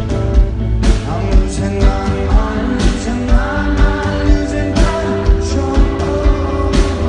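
Live rock band playing, with a steady drum beat about twice a second and a lead vocal singing over guitars.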